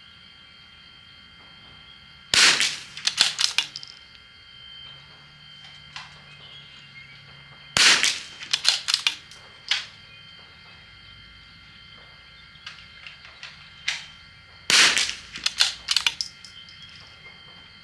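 Three shots from a CZ bolt-action .22 rimfire rifle firing Eley match ammunition, about five to seven seconds apart. Each shot is followed within a second by a quick run of metallic clicks as the bolt is worked to eject the case and chamber the next round.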